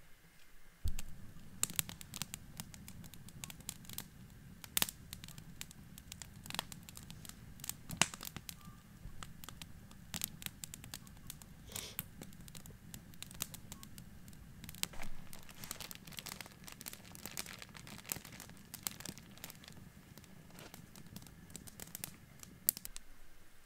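Wood campfire burning in a stone fire ring: a steady low rush of flames with frequent sharp pops and crackles, starting suddenly about a second in.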